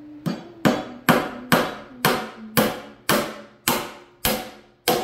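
Hammer driving a nail into the reclaimed-wood seat board of a bench, about ten evenly spaced blows at roughly two a second, each a sharp knock with a brief ring.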